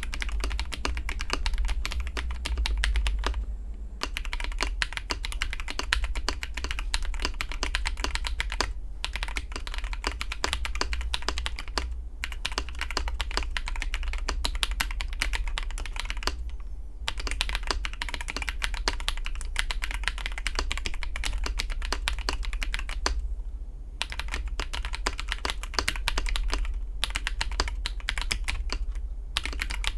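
Fast typing on a KBD67 Lite R2 mechanical keyboard with AKKO CS linear switches and AKKO Neon cherry-profile keycaps. It is Matcha Green switches at first, then Vintage White switches from about four seconds in. The key clacks run dense, with a few short pauses, over a steady low hum.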